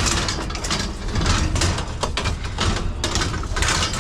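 A strap being fastened down over a load of scrap metal: irregular clicking and rattling over a low steady rumble.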